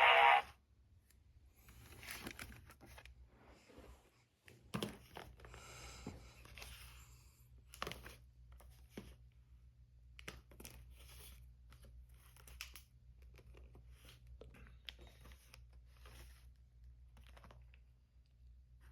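Crinkling and rustling of plastic and cardboard packaging being handled, with scattered small clicks and taps throughout and a longer rustle about five seconds in.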